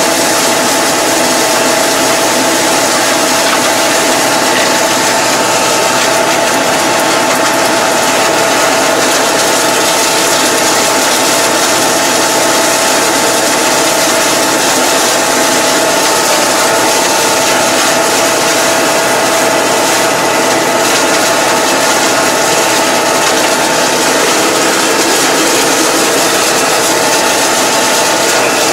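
Tractor engine running steadily under load with the mower working, heard from inside the cab: a constant loud mechanical din with a steady whine and rattling.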